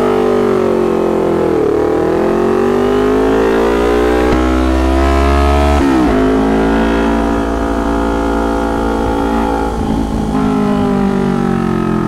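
Kawasaki Ninja 250's parallel-twin engine through a loud, tinny aftermarket exhaust, accelerating away with the engine pitch climbing and dropping at upshifts about two and six seconds in. It is very noisy.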